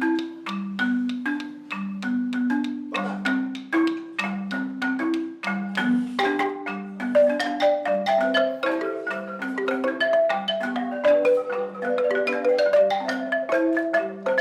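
Marimba playing a repeating low figure of struck notes. A busier higher melody joins about halfway through.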